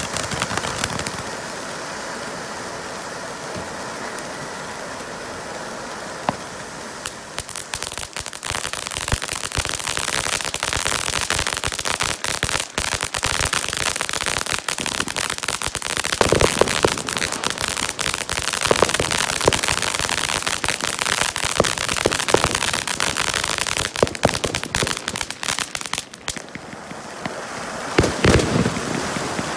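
Multi-tube fan-shaped firework fountain burning. For the first seven seconds or so it sprays with a steady hiss. Then comes a dense run of crackling pops, which dips briefly near the end before picking up again.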